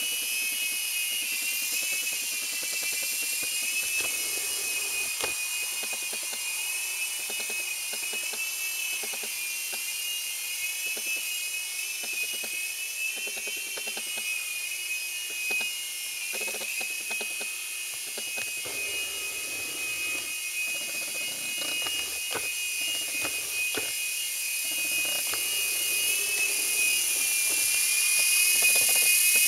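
Phoenix 3-channel mini coaxial RC helicopter flying: its small electric motors and twin rotors make a steady high whine whose pitch wavers slightly with the throttle. It grows louder in the last few seconds as it comes close.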